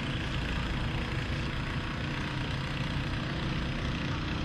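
An engine idling steadily, a low even rumble.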